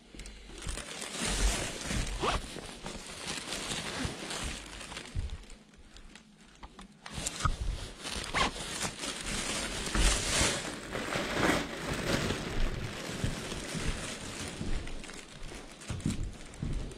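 Rustling and crinkling handling noise with scattered clicks, coming and going irregularly, with a brief lull about six seconds in.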